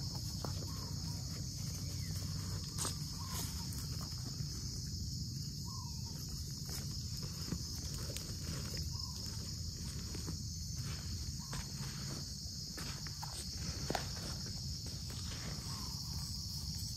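Steady high-pitched insect chorus, with footsteps crunching on dry leaf litter now and then.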